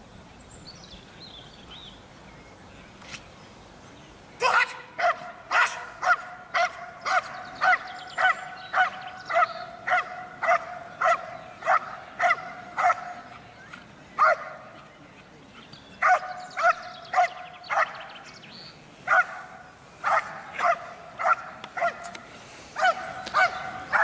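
Belgian Malinois barking hard and repeatedly, about two barks a second, starting a few seconds in and going on in runs with a few brief breaks. It is a protection-trained dog barking at a helper in a bite suit to hold him at bay.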